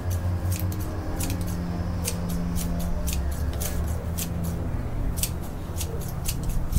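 Small hand scissors snipping through grass blades, a sharp snip about twice a second, over a steady low hum.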